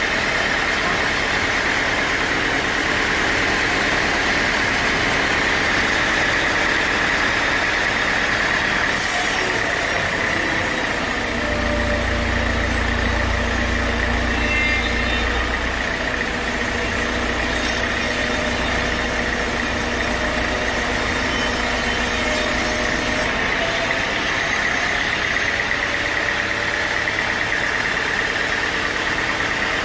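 Sawmill machinery running steadily. From about nine seconds in until about twenty-three seconds, a brighter hiss and a deeper low hum join the sound.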